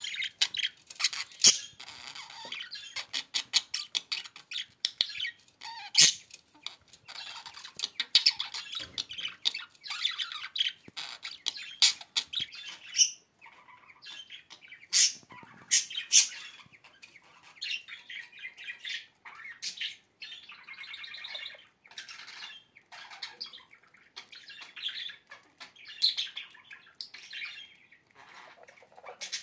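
Bird squawking and chirping in rapid, broken calls, with many sharp clicks among them.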